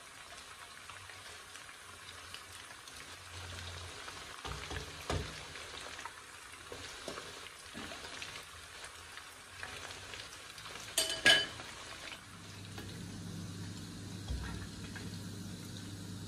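Battered chicken pieces deep-frying in hot oil, a steady sizzle with small crackles. About eleven seconds in, a short, loud metallic clatter rings out. A low hum joins just after.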